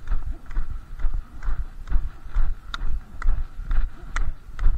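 Brisk footsteps on a packed-snow road, about two a second, with the sharp clicks of Nordic walking poles striking the frozen surface.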